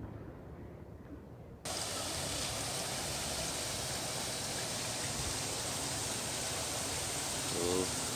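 Steady rushing of water, starting abruptly about a second and a half in, with a brief pitched sound near the end.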